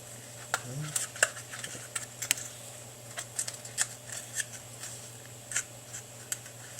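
Knife blade cutting through the paper cone of a car speaker just above the voice coil: a run of small, irregular, crisp snips and ticks.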